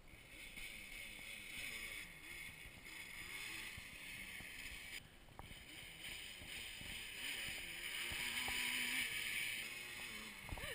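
Quad bike (ATV) engine faintly revving up and down in the distance, over a steady hiss.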